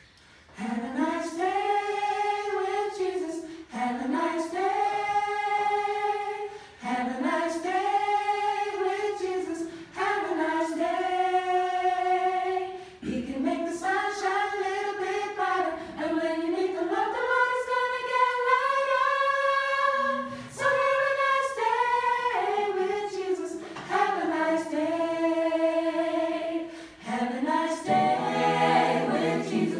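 A small mixed group of men's and women's voices singing a cappella, in phrases of about three to four seconds with brief breaks between them.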